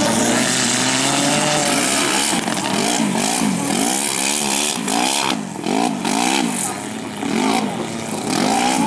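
Off-road buggy engine revving hard as it works up a mud bank, the pitch swinging up and down again and again, with quick throttle blips about halfway through.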